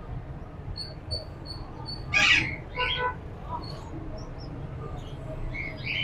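Caged birds calling: a small bird gives five quick, high chirps, then two louder short squawks come about two seconds in and a second later.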